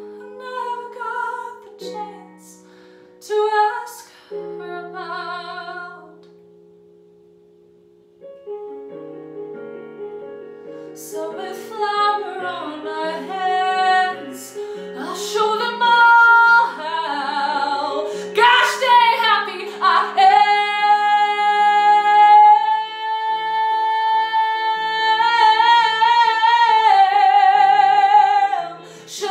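A woman singing a show tune solo over an instrumental accompaniment of sustained chords. After short phrases and a quiet dip a few seconds in, the song builds to a long, loud held high note with vibrato that ends near the end.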